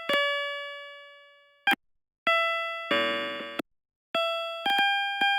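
Synthesized tones from the Fractal Sound Explorer program, each note generated from a point's orbit in the Mandelbrot set. Several chime-like notes start suddenly and fade, with short gaps of silence between them. About three seconds in comes a brief, dense buzzing cluster of many pitches.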